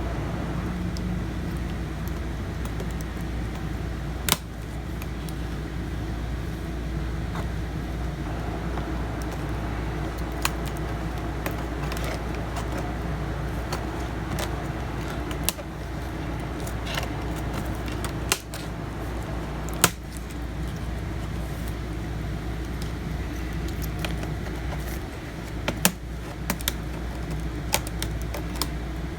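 Scattered sharp plastic clicks and snaps as a tight-fitting laptop keyboard is pried out of its clips, over a steady low hum.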